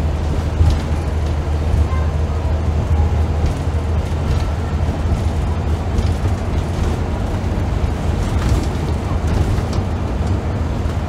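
Scania L94UB bus's rear-mounted five-cylinder 9-litre diesel engine running steadily under way, heard from inside the passenger saloon as a loud, steady low drone.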